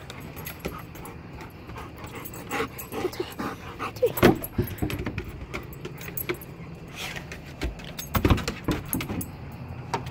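Dog playing with its ball: scattered short knocks and rattles, with brief whimpers about four seconds in and again near eight seconds.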